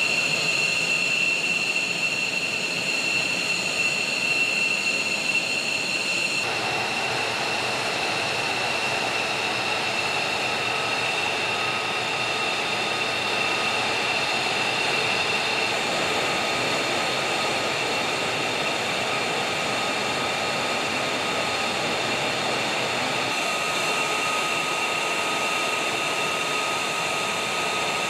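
Fighter jet engines idling on the ground: a steady high-pitched whine over a rush of noise. The pitch mix shifts abruptly about six seconds in and again near the end.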